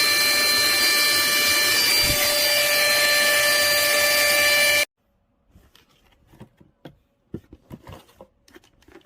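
Portable mini handheld vacuum cleaner running with a steady whine over a rush of air, cutting off suddenly about five seconds in. Faint clicks and knocks of handling follow.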